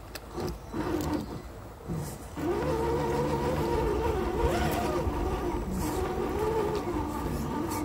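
Electric motor and gear drive of an RC rock crawler whining under throttle: a few short blips, then a steady whine from about two and a half seconds in, its pitch rising and falling with the throttle.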